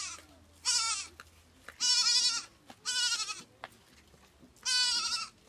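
A young goat kid bleating repeatedly: four loud, wavering bleats about a second apart, after the tail of another at the very start. These are the calls a kid makes when it is looking for its mother or feels left alone.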